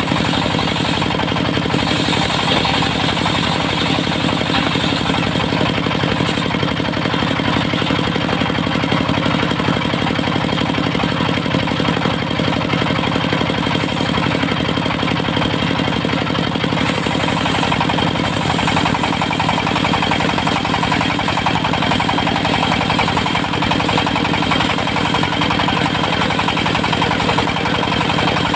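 Engine of a portable circular sawmill running steadily under a loud, even drone, its pitch shifting slightly about two-thirds of the way through.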